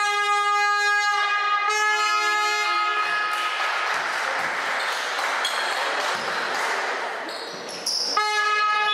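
A horn-like instrument sounding long held notes across the hall: one note of about three seconds that steps down in pitch partway through. Crowd noise of the hall follows, and a second held note starts near the end.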